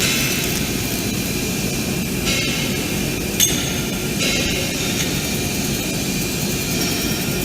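Laser cutting machine running: a steady roar with stretches of high hiss that switch on and off, and one sharp click about three and a half seconds in.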